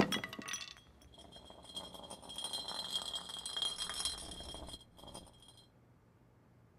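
Glass whiskey bottle rattling against a hard floor for a few seconds, with a steady high ringing note, stopping about five seconds in.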